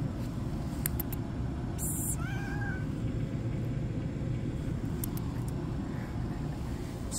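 A cat meows once, a short, slightly rising-and-falling call about two seconds in, just after a brief hiss-like noise. A steady low rumble runs underneath.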